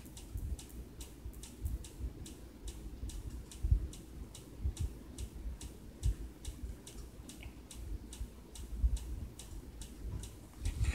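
Quick, even ticking, about three ticks a second, with a few dull low thumps scattered through it.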